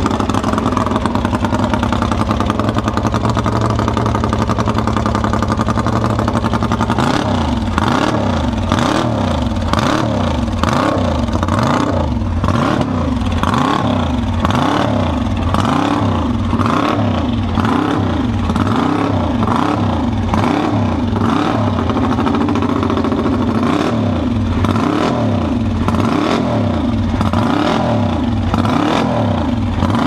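Vintage Ducati factory race motorcycle engine running loud, held at a steady speed for about seven seconds, then revved up and down repeatedly, about once a second, by a mechanic blipping the throttle.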